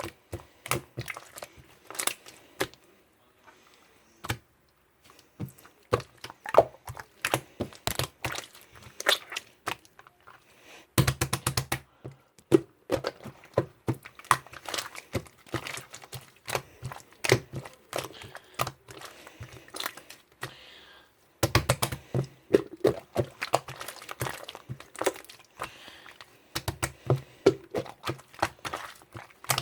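Irregular sharp clicks and taps, with a brief burst of rapid clicking about eleven seconds in and again about twenty-one seconds in.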